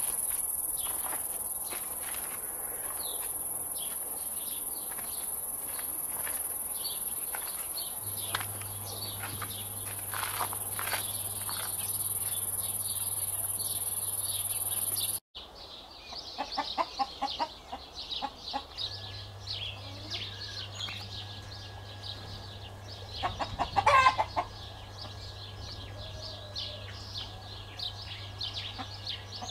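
A steady high-pitched insect drone with scattered ticks, then, after a cut, hens clucking in short calls, with one louder burst about two-thirds of the way through.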